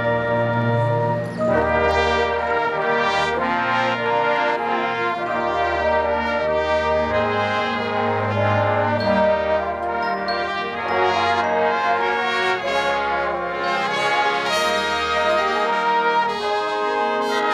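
High school marching band brass section playing held, changing chords, with trumpets to the fore and deep bass notes underneath.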